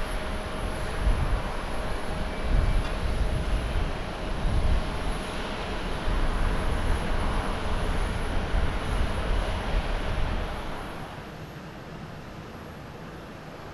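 All Nippon Airways Boeing 787-9 Dreamliner's Rolls-Royce Trent 1000 turbofans running at takeoff thrust as it climbs out: a loud, low jet rumble with a faint steady tone over it. About ten and a half seconds in it drops away sharply to a quieter, even hiss.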